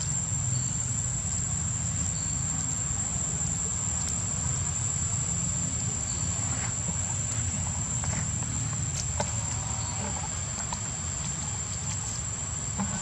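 A steady high-pitched insect drone, a single unbroken tone, over a low steady background rumble, with a few faint scattered clicks and rustles.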